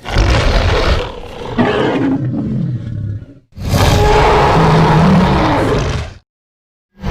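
Spinosaurus roar sound effects: a first deep, rough roar that fades out by about three and a half seconds, then a second, louder and steadier roar that cuts off about six seconds in. A third sound begins right at the end.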